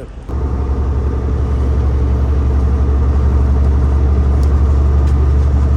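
Semi truck's diesel engine running with a steady, loud low hum that starts just after the beginning and grows slightly louder over the first couple of seconds.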